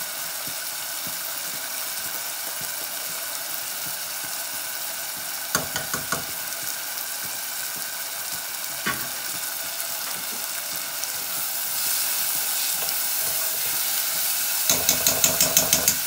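Spiced masala sizzling steadily in a non-stick saucepan on a gas burner, growing louder about twelve seconds in. A few sharp clinks around six and nine seconds in, then a quick run of metal spoon strikes against the pan near the end as it is stirred.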